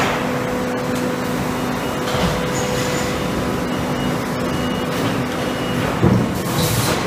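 Concrete paving-block production line running: a steady machinery din with a faint motor hum, and a single knock about six seconds in as the hum stops.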